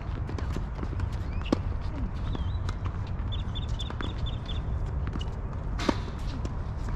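Tennis court ambience: footsteps and scattered ball bounces on the hard court over a steady low rumble. A quick run of high chirps comes midway, and a single sharp smack about six seconds in.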